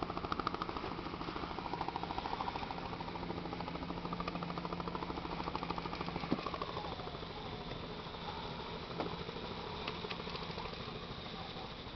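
Conventional fishing reel ratcheting in a rapid run of fine clicks as a hooked sturgeon pulls against it, for about six seconds, with a sharp click near the middle, then only a few faint taps.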